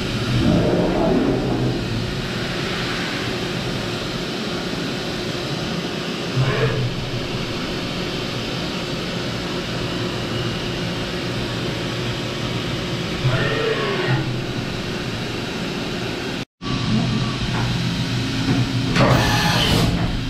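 Doosan DNM 5700 CNC vertical machining center running: a steady machine hum, with a few brief whines that glide in pitch as the table moves along its axes, and a short hiss near the end.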